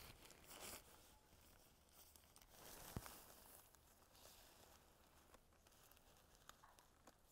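Faint rustling of the tent's nylon fly and webbing as a toggle buckle is worked through a ring on the web truss, with one sharp click about three seconds in and a few light ticks later.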